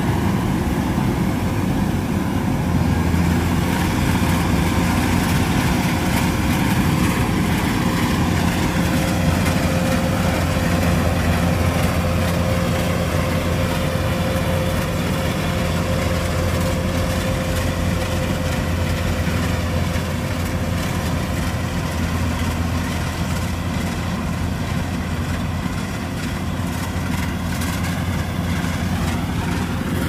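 Kubota DC-105X combine harvester running steadily while cutting rice: a constant diesel engine hum with a steady held tone above it.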